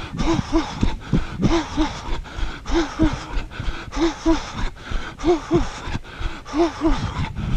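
A runner's heavy, voiced breathing in a steady rhythm: a pair of short puffs about every second and a quarter, over a low rumble of movement and wind on the microphone.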